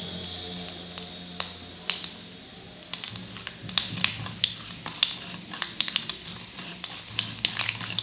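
Mustard seeds and urad dal frying in hot oil in a kadai: a steady sizzle with sharp pops and crackles. From about three seconds in, a wooden spatula stirs them and the pops come thick and fast.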